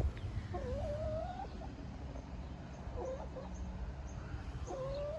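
Young chickens giving soft, drawn-out wavering calls, three times, over a low background rumble.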